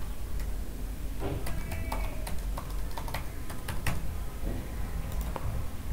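Computer keyboard keys being typed: a scattered, uneven run of about a dozen short clicks as a password is entered, over a low steady hum.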